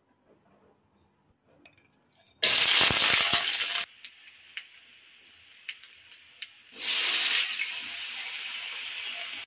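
Onion, green chillies and ground spices frying in hot oil in a metal karahi. A loud sizzle starts suddenly about two and a half seconds in and drops after a second and a half to a lower hiss with light clicks of the spatula against the pan. Near seven seconds the sizzle flares loud again, then settles to a steady frying hiss.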